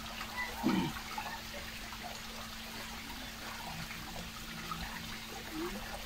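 Small garden grotto waterfall trickling and splashing steadily over stones into its pool. A brief, louder low sound falling in pitch cuts in about a second in.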